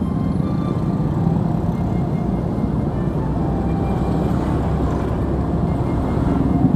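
Motorcycle engine running steadily while riding, with wind buffeting the phone's microphone; faint background music underneath.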